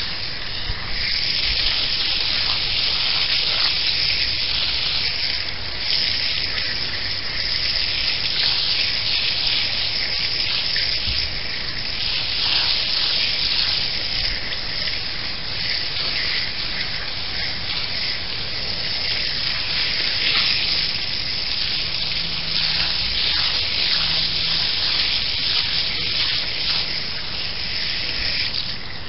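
Jet of water from a garden hose spraying onto a pleated Intex pool filter cartridge, a steady hissing spray splattering off the pleats as the grit is washed out of the dirty filter.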